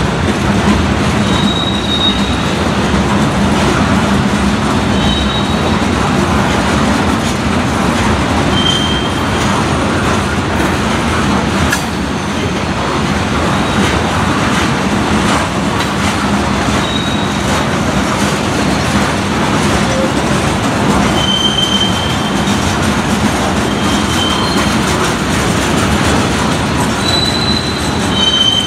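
Freight train of CSX hopper cars rolling steadily past with a continuous rumble and wheel clatter, and short high-pitched wheel squeals every few seconds.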